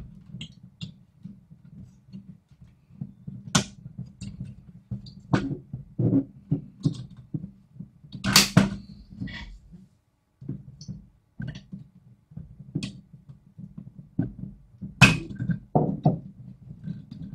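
Scattered plastic clicks and knocks as hands work the LCD screen free of the tabs in a Tektronix TDS 210 oscilloscope's plastic front panel, with three louder clicks spread through.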